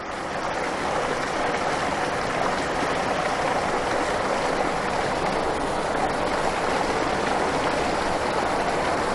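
Running water, a steady, even rush with no breaks.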